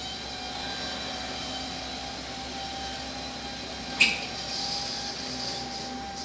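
Electric train standing in the station, giving a steady mechanical whine and hum. A sharp click comes about four seconds in, followed by a short hiss.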